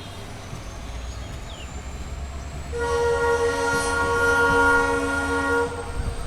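WDP4D diesel locomotive's horn sounding one long, steady blast of about three seconds. It starts about three seconds in and cuts off sharply, over the low rumble of the moving train.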